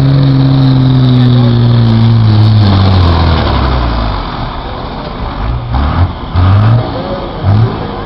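Modified Oliver pulling tractor's diesel engine running hard at full throttle, its note sagging steadily lower under the load of the pull for about three seconds. Then it is throttled back, followed by several short revs of the throttle.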